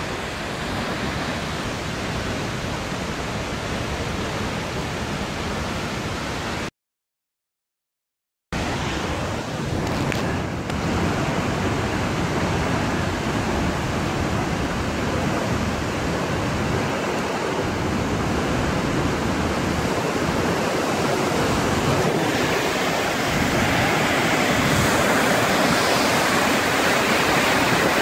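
Flash-flood waterfall pouring down a canyon cliff: a steady rush of falling water that cuts out for about two seconds, then returns and grows louder toward the end.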